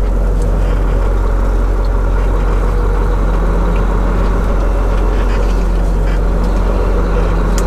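Semi truck's diesel engine heard from inside the cab: a steady low drone as the truck pulls slowly through a turn, its pitch rising slightly partway through.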